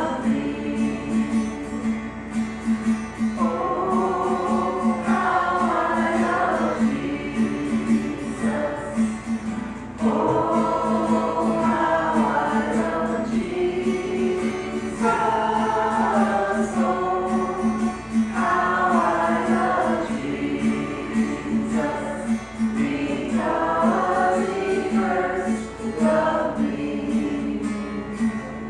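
A group of voices singing a gospel worship song in phrases of a few seconds, with a steady low note held underneath. The singing ends right at the close.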